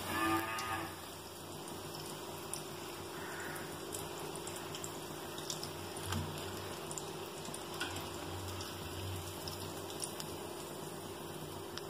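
Hot oil sizzling and bubbling as potato bondas deep-fry, with a brief metal scrape of the slotted ladle against the pan near the start, over a steady hum.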